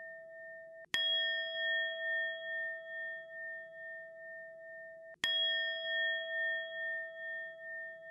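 A bell already ringing, then struck twice about four seconds apart, about a second in and again about five seconds in. Each strike rings on as a clear sustained tone that pulses slowly in loudness.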